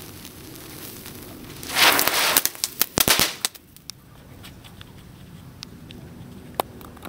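StarKids children's fountain firework burning: a low spray of sparks, then about two seconds in a loud hissing burst, followed by a quick run of sharp crackling pops that thins out to a few scattered pops.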